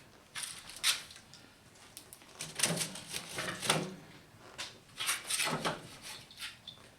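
Irregular knocks, scrapes and rustles of kindling and small sticks being handled in a wood stove's firebox as a fire is being started.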